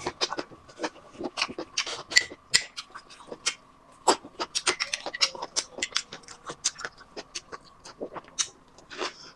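Close-miked chewing and wet mouth sounds of someone eating a rice-paper roll of beef shank: rapid, irregular smacks and clicks with short pauses.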